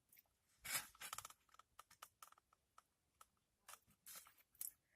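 Chewing a crunchy fried egg roll: a scatter of faint short crunches and mouth clicks, the loudest about a second in.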